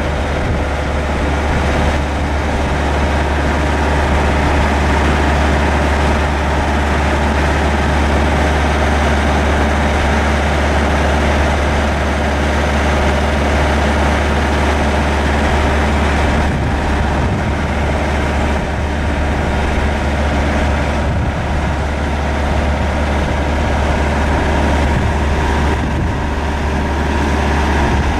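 Caterpillar 3406 inline-six diesel engine of a vactor truck running steadily with a strong low drone, powering the hydraulics that tip the dump bed up.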